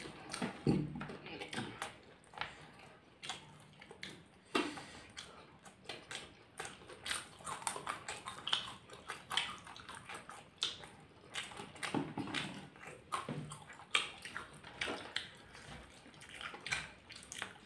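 Two people chewing open-mouthed, close to the microphone, as they eat rice and vegetables: irregular wet lip smacks and mouth clicks.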